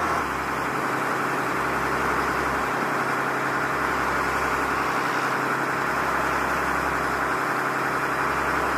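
A boat's engine running steadily at a constant low hum, under a continuous rush of wind and water.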